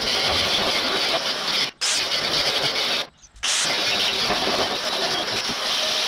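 Steel being cut on a backhoe's bearing housing: a steady, loud, harsh hissing noise that stops abruptly twice for a moment, about two and three seconds in.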